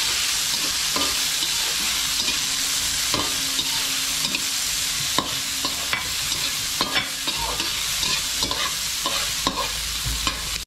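June beetles (salagubang) sizzling steadily in hot oil in a metal wok while a metal slotted turner stirs them, scraping and knocking against the pan with scattered clicks. The beetles are being fried until crunchy.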